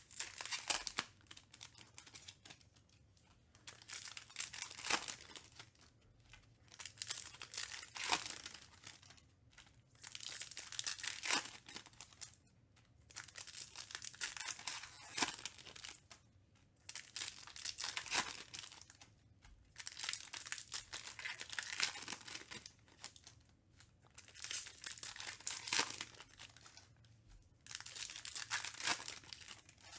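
Foil trading-card pack wrappers, 2021 Topps Stadium Club Chrome packs, being torn open and crinkled by hand one after another. The crackling comes in bursts of a couple of seconds with short pauses between.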